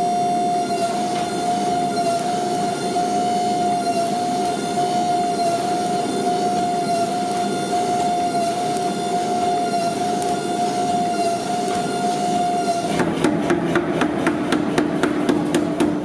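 Hydraulic forging press running with a steady whine while it works a glowing steel billet. About thirteen seconds in, a mechanical power hammer starts pounding the hot billet in rapid, even blows, about five a second.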